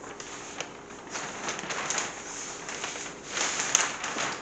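Large paper plan sheets rustling and crackling as they are turned over and spread flat on a table, in uneven bursts with the loudest crackle about three and a half seconds in.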